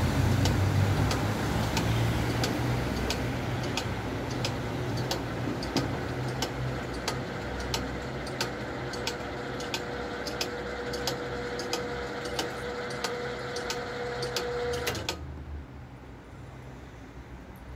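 A road vehicle passes at the start, then a level-crossing mechanism runs with regular clicks, about two a second and growing denser, joined later by a steady hum. Both stop abruptly about fifteen seconds in, as the crossing's red warning light goes out, marking the end of the crossing's opening cycle.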